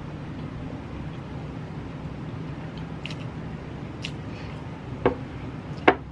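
A person eating instant masala noodles: faint mouth clicks of chewing over a steady low hum, then two sharp knocks near the end, about a second apart.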